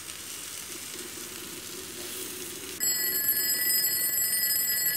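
Chicken and tempeh sizzling in margarine in a frying pan. About three seconds in, an alarm-clock ringing sound effect starts and rings steadily, louder than the sizzle.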